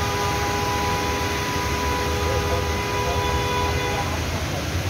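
A vehicle horn held in one long blast of two steady notes together, stopping about four seconds in, over the steady rush of floodwater running down the street.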